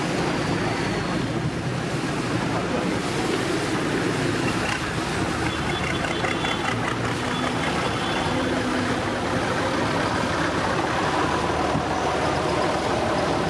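A procession of John Deere and New Holland farm tractors driving past one after another, their diesel engines running at a steady level.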